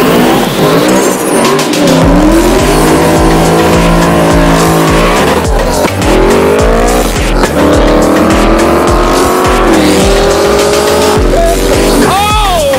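Music with a pulsing heavy bass, mixed with car engines revving up and down and tires squealing from burnouts.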